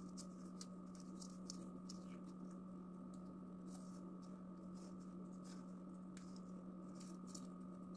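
Faint, scattered rustles and light ticks of a thin paper strip being rolled tightly by hand into a miniature paper flower, over a steady low hum.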